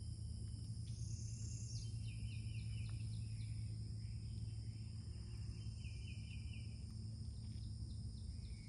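Outdoor ambience: insects trilling steadily at a high pitch, with a few short runs of chirps, over a low steady hum.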